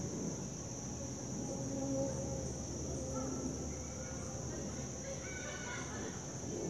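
Insects droning steadily at a high pitch over a low outdoor rumble, with a distant pitched call about five seconds in.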